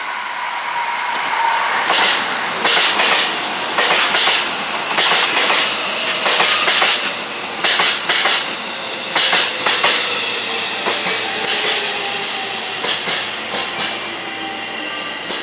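Train passing close by, its wheels clacking over rail joints in pairs and clusters about once a second, with a faint falling whine underneath.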